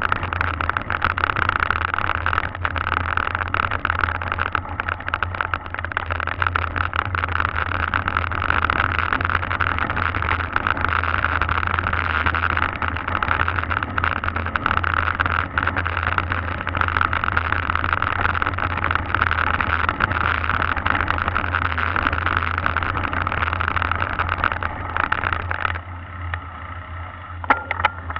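Steady rolling rumble and rattle of a mountain bike riding over cobblestones and rough concrete, picked up through a handlebar-mounted camera shaken by the ride. It drops sharply and gets quieter near the end.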